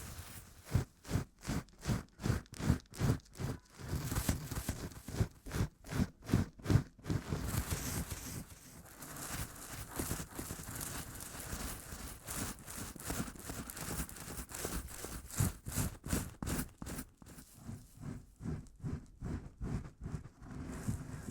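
Rhythmic rustling strokes, about two a second, that give way to a steadier rustling hiss midway before faint strokes return near the end.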